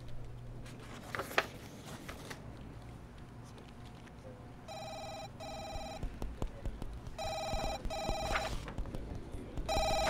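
A telephone ringing with an electronic double ring, ring-ring then a pause, three times from about halfway through. Before it there is faint rustling of paper pages being turned.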